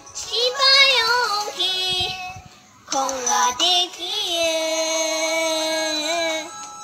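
A young girl's solo voice singing a birthday wishing song: a few short phrases, a brief break about two and a half seconds in, then a long held note with vibrato that ends near the close.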